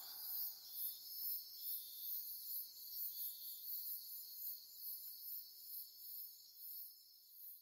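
Crickets chirping faintly in a steady rhythm, about three chirps a second, stopping near the end.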